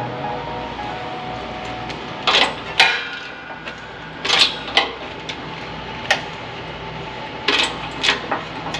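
Sheet-metal box parts being worked by hand: irregular metallic clanks and knocks, about seven in all, as the edges of the lid and bottom are bent and pressed together.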